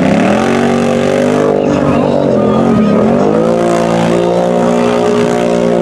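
ATV engine revving hard as the big lugged mud tires spin and churn through deep mud and water. The revs sag just after the start and again about two and a half seconds in, then climb back and hold high.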